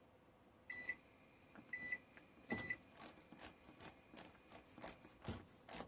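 Toshiba microwave control panel beeping three times, short high beeps about a second apart, as keys are pressed. This is followed by a run of quick irregular clicks from its time-setting scroll dial being turned.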